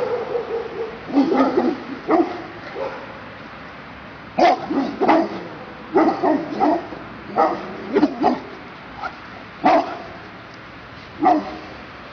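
Large dogs barking during rough play: about a dozen short, deep barks, singly or in quick pairs, a second or so apart.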